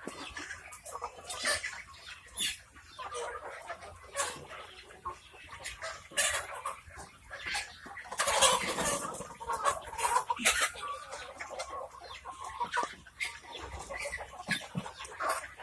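A flock of chickens clucking and calling, the calls overlapping throughout and loudest in a burst about eight and a half seconds in.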